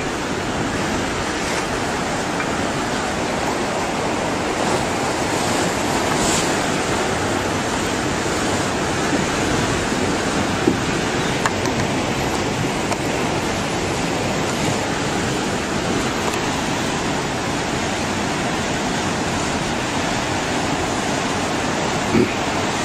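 Tsunami floodwater surging and churning: a steady, even rush of water.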